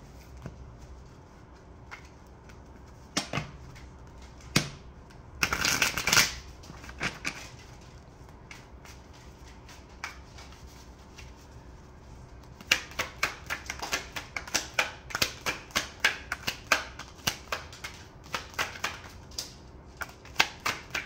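A deck of cards being shuffled by hand: a few scattered taps and a brief papery rustle about five seconds in, then, from a little past halfway, a quick run of card slaps, about three or four a second.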